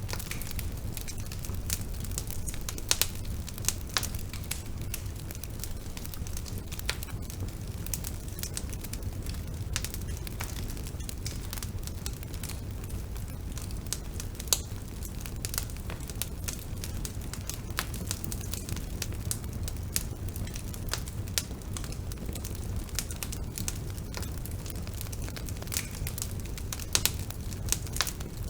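Bonfire burning, a steady low rumble of flames with frequent irregular crackles and pops from the burning wood.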